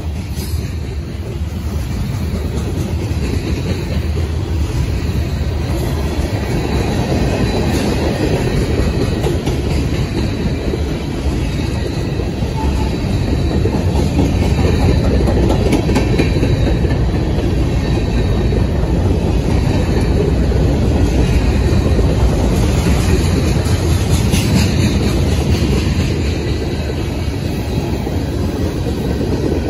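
Norfolk Southern freight train of covered hoppers and tank cars rolling past close by: steel wheels rumbling on the rails with a steady clickety-clack over the rail joints.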